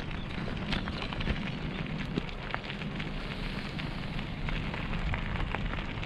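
Bicycle tyres rolling over a gravel path: a steady crunching crackle of loose stones with many small sharp clicks, over a low rumble.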